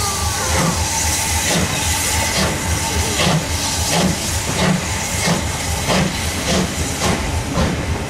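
Ivatt class 2MT tank steam locomotive pulling away with a train of coaches: a steady hiss of steam over regular beats, about two to three a second, as the coaches roll past.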